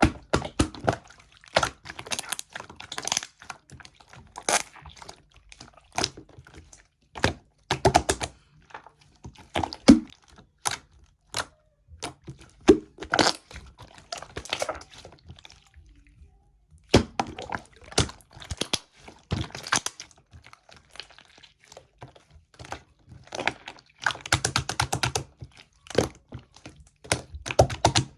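Soft, milky slime being squished, poked and pressed by hand, giving quick irregular sticky clicks and pops, with a short pause a little past halfway.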